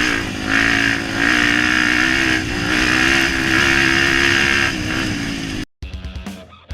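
Trail motorcycle engine running at a steady pitch while riding, its loudness swelling and easing a few times. It cuts off abruptly near the end, and rhythmic rock music with guitar and drums starts.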